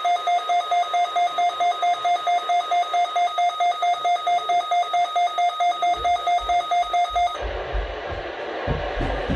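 Electronic emergency-alert tone relayed over broadcast radio: a single steady-pitched beep pulsing rapidly, roughly five times a second, marking the start of a severe weather warning. It cuts off about seven seconds in, giving way to hiss with some low thumps.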